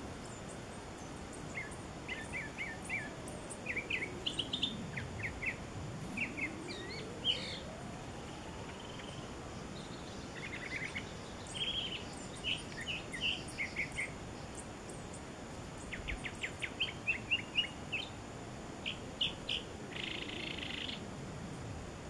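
Northern mockingbird singing in bursts of short chirping notes and repeated phrases, with a quick run of rapid notes about three-quarters of the way through and a brief harsher note near the end.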